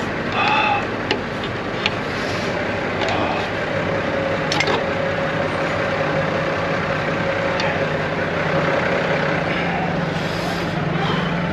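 Heavy truck's diesel engine idling with a steady low hum. A few sharp clicks and knocks come from the air lines and cable being handled on the deck plate.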